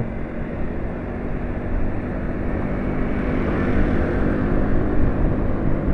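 Motor scooter engine running steadily at cruising speed, heard from the handlebars as an even hum, with wind rush on the microphone.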